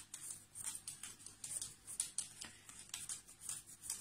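A cloth rubbing shoe polish onto a carved avocado-stone button: faint, quick scratchy strokes, about three a second. This is the tinting step that darkens the button and makes its relief stand out.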